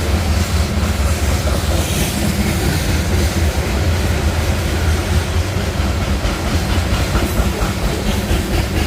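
Union Pacific train rolling past, a steady loud rumble with clattering wheels on the rails.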